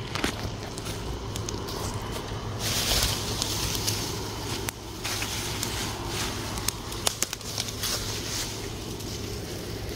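Yard debris and dry tree stems burning in a fire pit, crackling with scattered sharp pops.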